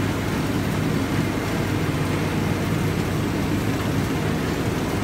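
Conveyor machinery of a blackberry processing line running: a steady mechanical drone with a low hum and no separate knocks or clatter.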